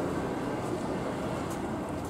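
A train running past with a steady rumble and rail noise.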